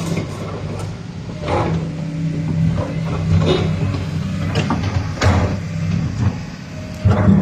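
Hyundai R220LC-9S crawler excavator's diesel engine running steadily while the boom, arm and bucket are worked, with several sharp clunks and knocks from the moving arm and bucket.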